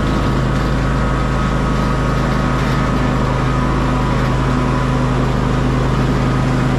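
Tractor engine running steadily at a constant pitch while driving along.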